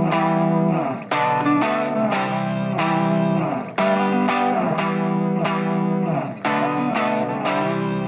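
Background music: an instrumental of plucked chords with a steady beat.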